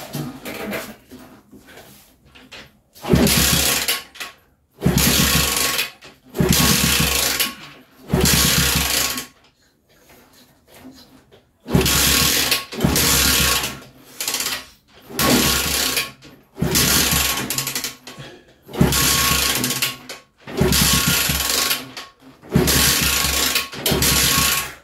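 A 50cc mini chopper's small engine being kick-started about a dozen times, each kick turning it over for about a second without it catching and running. The owner puts the failure to start down to a filthy carburettor.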